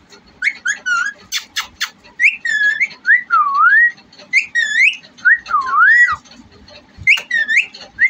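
Yellow (lutino) ring-necked parakeet whistling a series of short notes that glide up and down. A quick run of sharp clicks comes about a second and a half in.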